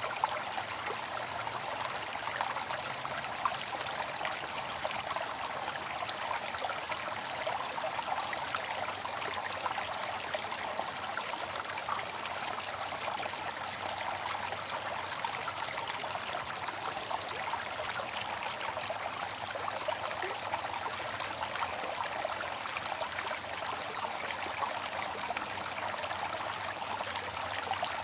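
Water fountain splashing and trickling steadily into its basin.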